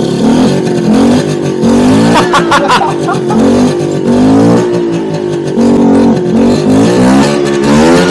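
Vespa PK scooter's small two-stroke single-cylinder engine running just after being brought back to life, revved up and down over and over on the throttle, which the owner thinks it needs or it would die by itself. A few sharp clicks come about two to three seconds in.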